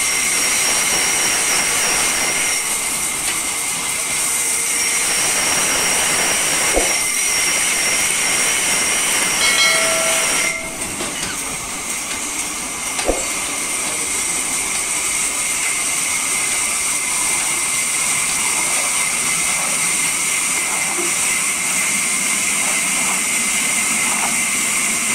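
Large sawmill band saw running and cutting through a log: a steady hissing whine from the blade. A couple of sharp knocks of wood on the steel table, and a brief pitched squeal about ten seconds in, after which the sound drops a little.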